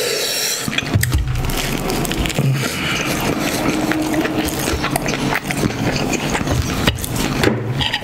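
Loud, close chewing: a man biting into and chewing a chicken sandwich, with many short wet clicks and mouth noises.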